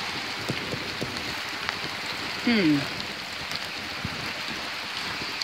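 Steady rushing of a flooded, rain-swollen creek mixed with falling rain, with scattered faint ticks. A short wordless voice sound with a falling pitch about two and a half seconds in.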